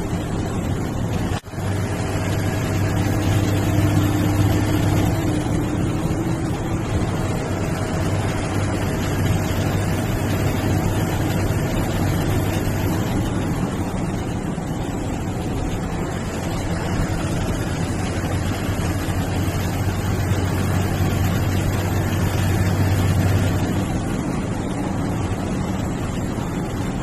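Bus diesel engine running on the road, heard from inside the cabin with steady road and wind noise; a faint high turbo whistle rises and falls three times as the engine pulls and eases off.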